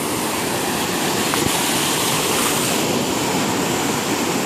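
Sea surf washing and breaking over shoreline rocks: a steady, loud rushing of foaming water.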